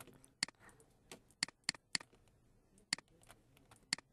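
Computer mouse clicking: about seven short, sharp clicks at uneven intervals while objects are Alt-dragged into copies.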